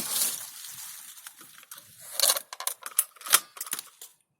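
Ratchet lopper cutting a branch: a run of sharp, irregular clicks from its ratchet mechanism and blades, loudest between about two and three and a half seconds in.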